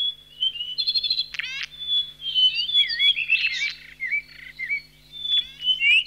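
Wild birds calling and singing: twittering, warbling whistles, broken about three times by a quick rattling run of falling notes.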